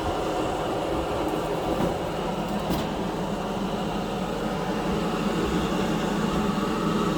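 Exhaust fan of a grill vent plenum running steadily, a constant rush of air with a low hum, drawing air down through the vent's filters.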